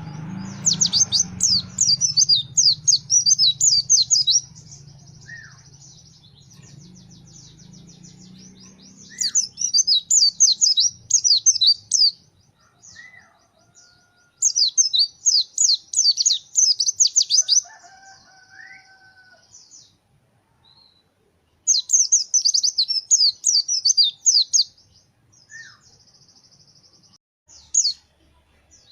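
White-eye (pleci, Zosterops) singing loud, rapid, high-pitched twittering song in four bouts of about three to four seconds each, with short pauses between. A few softer, lower whistled notes fall in the gaps.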